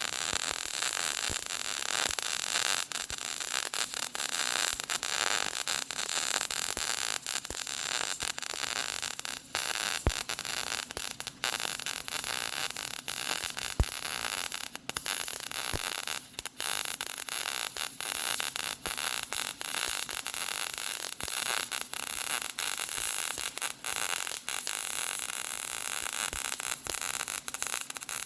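MIG welding arc from a Power MIG 255C laying a bead on steel plate: a steady crackling hiss broken by many brief dropouts.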